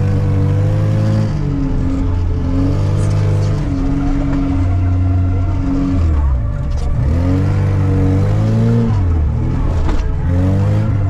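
Classic VAZ Zhiguli's inline-four engine revving hard while the car drifts on snow. The revs are held high, then drop and climb again several times, with a deeper dip about six seconds in.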